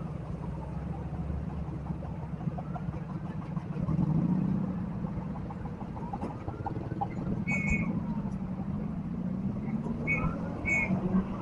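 Road traffic at a level crossing: the engines of passing vehicles run in a steady low hum, swelling louder about four seconds in. Three short high-pitched toots sound in the last few seconds.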